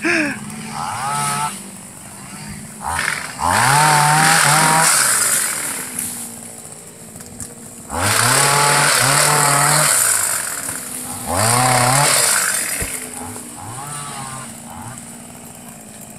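Maxima motorised sickle-type palm pruner on a 15-foot pole: its small engine idles and revs up hard three times, each surge rising in pitch and lasting a couple of seconds. Shorter, lighter revs come between the surges.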